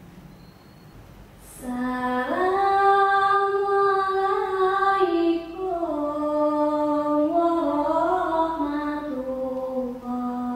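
A single unaccompanied voice singing a slow chanted phrase, as in the opening vocal of an Acehnese Saman dance. It starts about two seconds in, rises on a long held note, then steps down in pitch over several held notes before stopping near the end.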